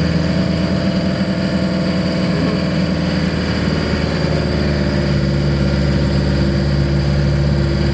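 Camper van engine running on a test drive after a new timing belt, heard from inside the cab where the engine sits under the doghouse cover: a loud, steady drone whose pitch shifts slightly about halfway through.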